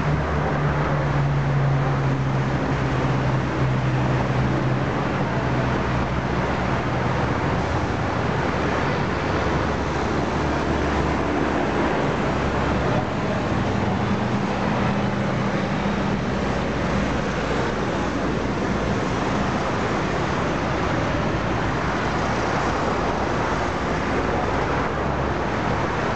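Road traffic on a busy city road: a steady wash of engine and tyre noise, with low engine hums that swell and fade as vehicles pass.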